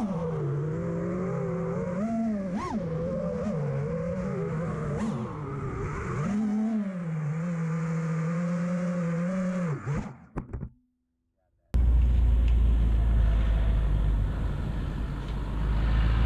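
FPV freestyle quadcopter's motors and propellers whining, the pitch swooping up and down as the throttle changes in flight. About ten seconds in the sound drops out, then a steady low rumble of outdoor ambience with wind on the microphone follows.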